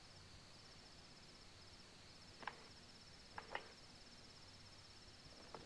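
Faint crickets chirping steadily in a quiet night ambience, with a few soft, brief ticks in the middle.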